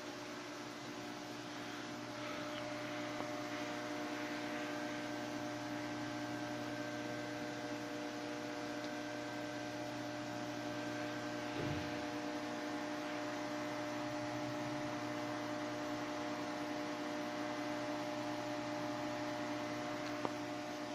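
Steady electrical hum of running electronic equipment: several even, unchanging tones over a faint hiss, with one faint knock about halfway through.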